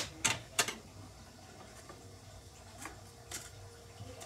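Sharp clicks and taps of pens and scissors handled on a desk: three in quick succession at the start, the first the loudest, then two fainter clicks about three seconds in.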